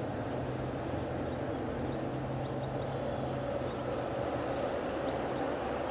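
Steady low background rumble with a faint hum of the kind distant road traffic makes; a few faint short high chirps sound about one to three seconds in.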